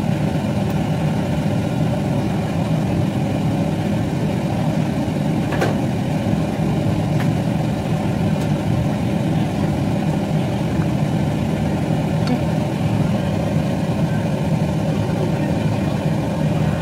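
Steady low machine hum at an even level, with a few faint clicks.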